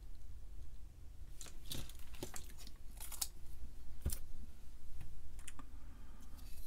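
Scattered light clicks and taps from a printed circuit board and soldering iron being handled on a workbench, with one firmer knock about four seconds in.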